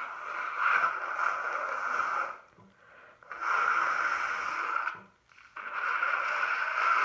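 A person blowing a congested nose from a cold into a tissue: three long, forceful blows with short pauses between, the last still going at the end.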